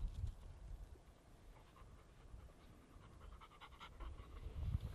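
A Labrador retriever panting quickly after a retrieve, with low rumbling bumps on the microphone at the start and near the end.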